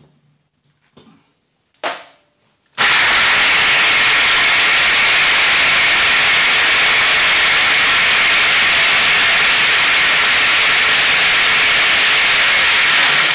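An electric drill driving the blade of a homemade plastic-drum blender, crushing coarse dry dog food into small pieces. It gives a short burst about two seconds in, then runs loud and steady for about ten seconds of grinding rattle before stopping.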